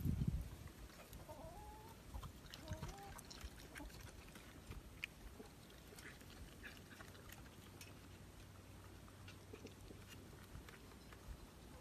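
A few short animal calls that bend in pitch, clucking or chittering, in the first three seconds, over faint scattered clicks.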